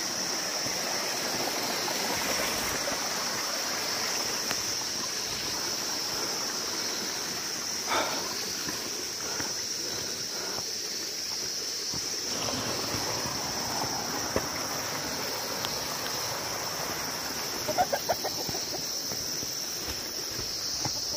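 Steady high-pitched insect chorus over the constant rushing of a small stream, with a few brief knocks of footsteps on the path and a quick run of ticks near the end.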